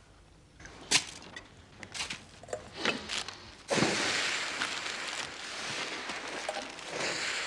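Light clicks and taps of china being handled, then a steady rushing hiss through the second half that dips briefly and swells again near the end.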